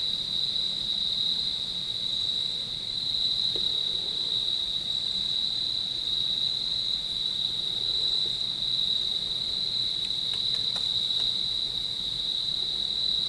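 Crickets trilling in a steady, unbroken chorus on one high note.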